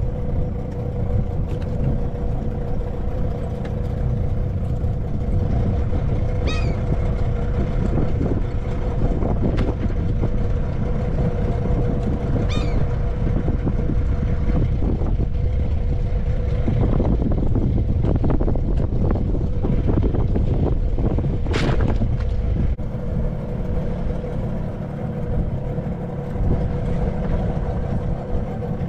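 Small skiff's outboard motor running steadily. Two short high chirps come about six seconds apart, and in the second half there is a spell of light clicks and rattles.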